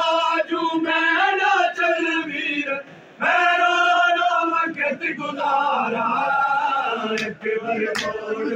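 A crowd of men chanting a Punjabi noha in unison, with a short break about three seconds in. Near the end come a few sharp slaps of matam, hands striking bare chests.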